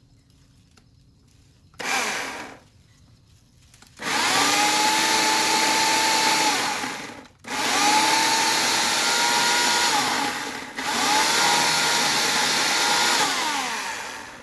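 Portland 14-inch electric chainsaw running in bursts: a short blip about two seconds in, then three long runs of a few seconds each, the motor whine climbing in pitch as it spins up and dropping as it winds down.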